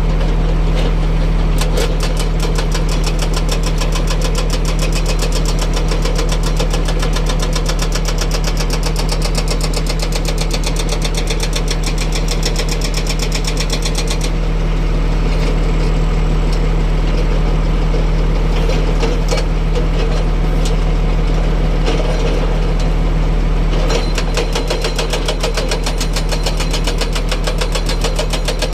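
Heavy diesel construction machine running steadily, with a rapid, even clatter of knocks over the engine hum. The sharper part of the clatter drops away for a few seconds about halfway through, then comes back.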